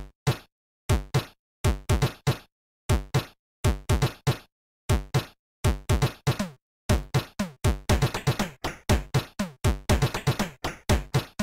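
Electronic intro music made of hard drum-machine hits with deep falling bass notes and dead silence between them, sparse at first and growing denser from about seven seconds in.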